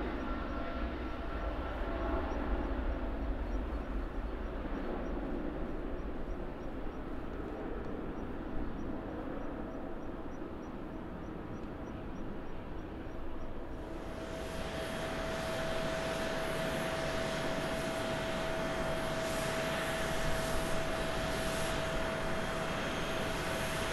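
Boeing 777-300ER's GE90 jet engines at takeoff thrust: a deep rumble that slowly fades as the airliner climbs away. About fourteen seconds in, the sound changes abruptly to a steadier airport hiss with a high, steady whine through it.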